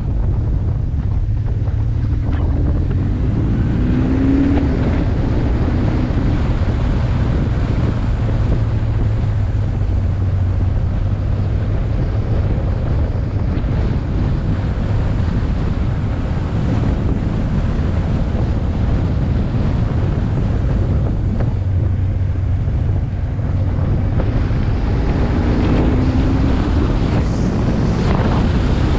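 Heavy wind rushing over a helmet-top action camera's microphone at road speed, with the BMW R1150R's boxer twin engine running steadily underneath.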